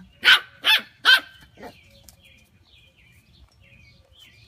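Three quick, loud barks about half a second apart, followed by faint high chirps.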